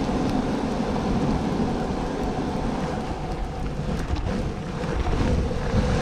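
Longboard wheels rolling on pavement, a continuous low rumble, with wind buffeting the microphone and a few faint ticks.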